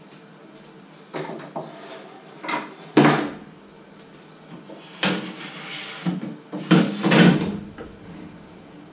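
Irregular knocks and clatters of kitchen things being handled and set down, about half a dozen, the loudest about three seconds in and again around seven seconds.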